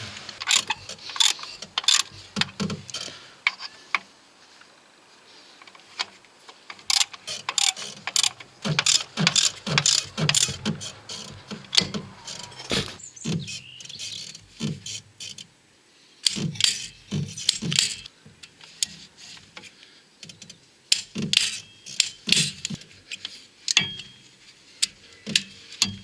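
Hand tools working metal on a gearbox mounting: irregular sharp metallic clicks and clanks, in clusters with short pauses.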